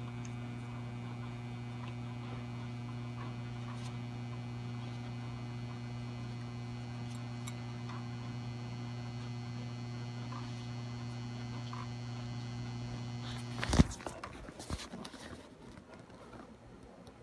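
400 W mercury vapour autotransformer ballast humming steadily at twice the mains frequency while powering two 150 W high pressure sodium lamps in series during warm-up. About three-quarters of the way through there is a sharp knock, after which the hum drops away.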